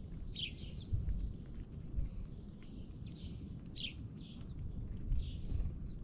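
Small songbirds at a ground feeding spot giving short, high chip calls, repeated every second or so, over a steady low rumble with a few soft thumps.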